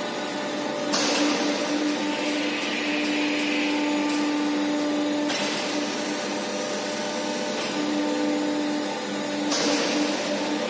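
A gas-cylinder homogenizer running: its drive whirs steadily with a low hum as it tips a bundle of gas cylinders back and forth to mix the gas. The sound swells with a louder rushing noise about a second in and again near the end.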